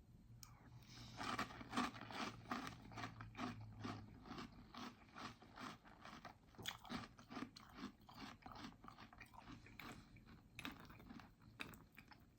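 A person chewing a mouthful of crunchy chocolate breakfast cereal: a steady run of short crunches, about three a second, starting about a second in.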